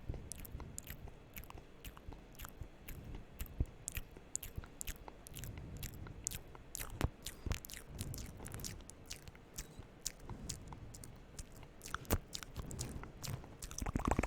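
Close-miked ASMR mouth sounds: wet lip and tongue clicks and smacks, irregular, several a second, with a louder cluster near the end.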